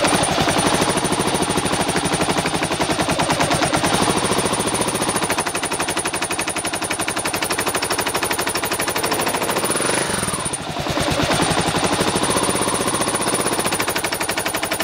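Kawasaki KLR650's single-cylinder engine running with a fast, regular clacking knock: the engine clack the owner is showing. The sound dips briefly about ten seconds in, then picks up again.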